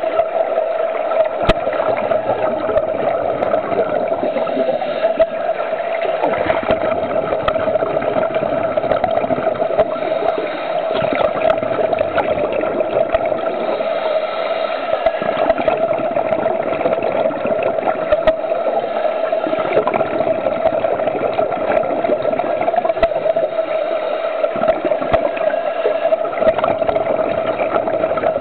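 Underwater sound in a swimming pool: a steady hum under a constant watery wash, with scuba divers' exhaled regulator bubbles gurgling and small clicks here and there.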